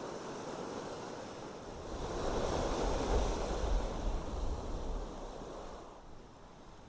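Sea waves washing on the shore: the surf swells about two seconds in and dies away again. There is some wind rumble on the microphone.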